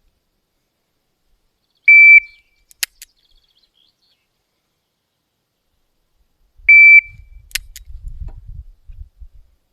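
Electronic shot timer beeping twice, a short high steady beep each time. Each beep is followed about a second later by two sharp snaps as the .22 LR revolver's trigger is pulled on a mix of live and empty chambers.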